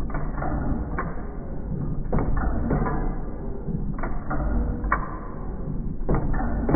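1909 1 HP Domestic hit-and-miss engine running, with a steady low rumble and sharp knocks at uneven gaps of about a second, as it fires only when its governor calls for power.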